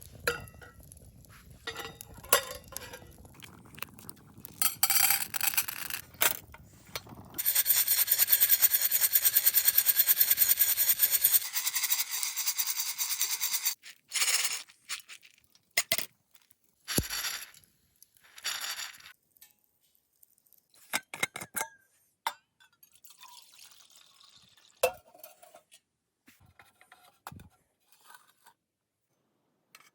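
Coffee beans rattling in a small hand-held mesh sesame roaster. A few seconds in, it is shaken quickly and evenly for several seconds, with scattered clinks and taps before and after.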